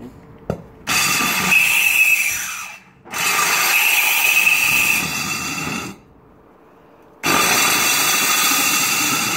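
Electric diamond core drill with a water-fed core bit boring into a concrete slab, run in three bursts of a few seconds each with a high motor whine and short stops between. A sharp click comes just before the first burst.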